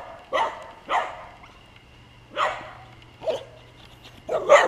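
A dog barking repeatedly, about six short barks at irregular intervals, the last two in quick succession near the end.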